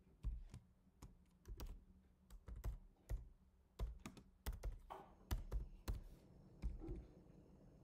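Typing on a computer keyboard: an irregular run of key clicks that stops about six seconds in.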